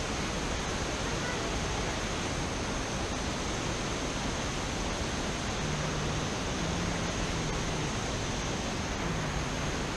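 Steady rushing of water pouring over a wide, low rock-ledge waterfall.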